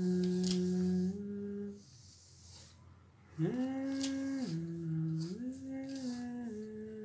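A person humming a slow tune in held notes that step up and down in pitch. The humming breaks off for a moment about two seconds in, then resumes.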